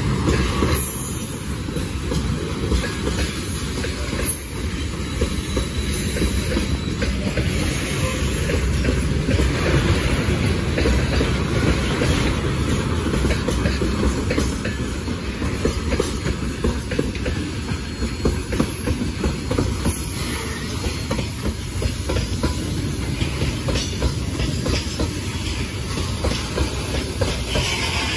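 Freight train of tank cars and gondola cars rolling past: a steady rumble of wheels on the rails with a dense clatter of wheel sets over the track.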